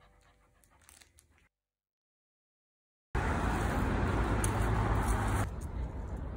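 A faint tail of music dies away into a second of silence. About three seconds in, steady outdoor noise with a heavy low rumble starts abruptly, and it drops somewhat in level about two seconds later.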